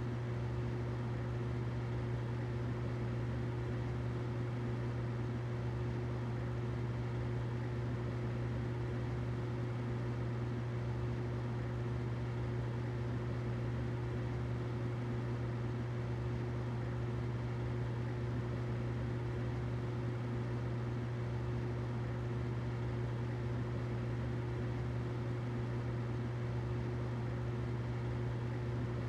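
Humidifier running: a steady low hum under an even hiss, unchanging throughout.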